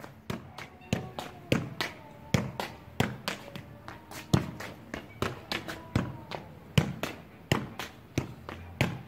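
Football being juggled on the foot: a long run of dull kicks of shoe on ball, about three a second and unevenly spaced.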